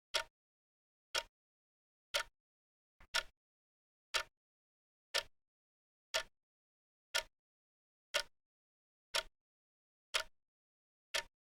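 Clock ticking, one sharp tick each second with dead silence between ticks; about three seconds in, a tick comes with a faint extra click just before it.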